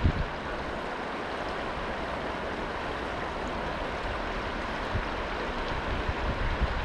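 Steady rushing noise with an uneven low rumble of wind on the microphone.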